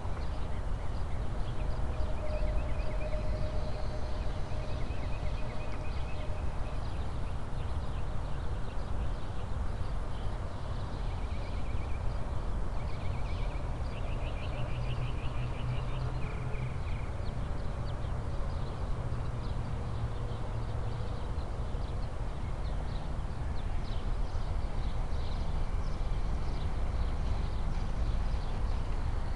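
Steady wind rumble on a small hat-mounted camera microphone, with birds chirping in short trills several times in the first half.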